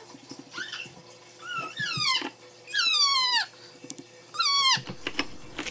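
A pet animal crying out about four times, each call sliding down in pitch, the longest in the middle.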